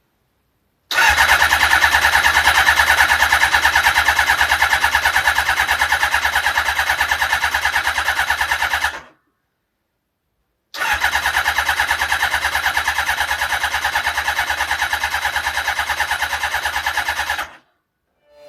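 An electric starter cranking an engine with a rapid, even pulsing, in two long attempts of about eight and seven seconds with a short pause between them. The engine does not catch on either attempt, just after a carburettor has been refitted.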